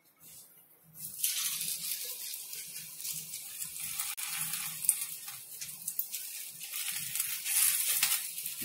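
Oil sizzling on a hot tawa as a potato-layered paratha is laid on it, starting suddenly about a second in and carrying on steadily.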